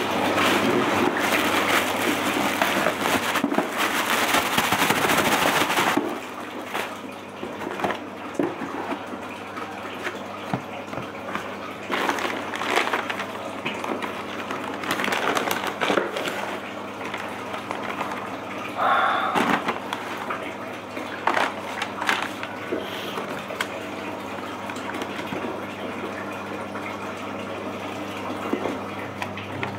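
Packaging being handled: a plastic mailer bag rustles loudly for about the first six seconds as it is opened, then tissue paper and a cardboard shoe box crinkle and rustle in short bursts. A steady low hum runs underneath.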